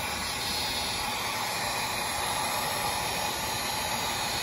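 Electric heat gun blowing a steady stream of hot air onto heat-shrink tubing over a soldered wire splice.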